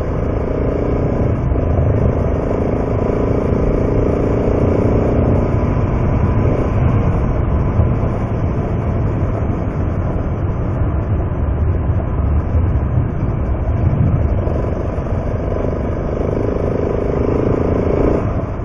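Dual-sport motorcycle riding at a steady pace on a gravel road: the engine's steady note over a constant rush of wind and road noise, the engine note standing out most in the first several seconds and again near the end.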